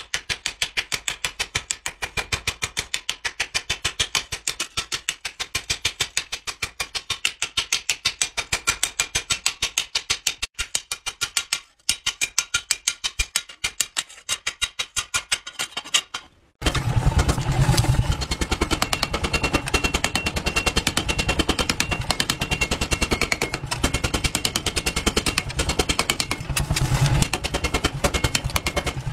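Hand hammer striking a hot steel knife blade on a steel anvil post in a fast, even rhythm of about four to five blows a second, with a short pause midway. At about 16 seconds this gives way to a mechanical power hammer running and pounding the blade in rapid blows over a steady low drone.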